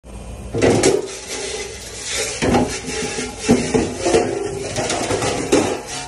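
Stainless steel hotel pans clanking as they are handled in a restaurant dish pit, several sharp ringing knocks, over the steady hiss of a pre-rinse sprayer's water.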